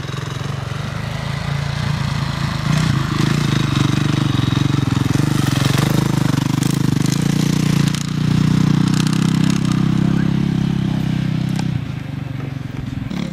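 Motocross motorcycle engine running close by, growing louder after a couple of seconds, dipping briefly partway through and falling off near the end.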